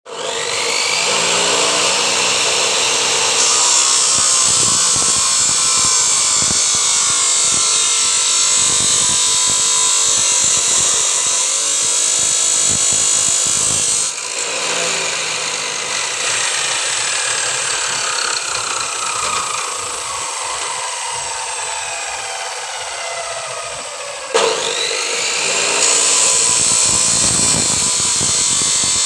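A power tool running continuously with a steady motor whine; after a sudden change about halfway through, its pitch slowly sinks for several seconds, then jumps back up near the end.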